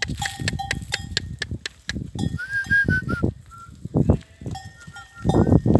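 A flock of goats and sheep bleating, loudest near the end, with a bell clinking among them and a short held whistle about two seconds in.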